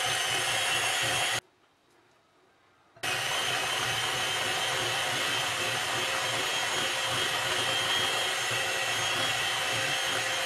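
Electric hand mixer running at a steady speed, its beaters creaming butter and cream cheese in a glass bowl. The sound cuts off completely for about a second and a half just over a second in, then carries on unchanged.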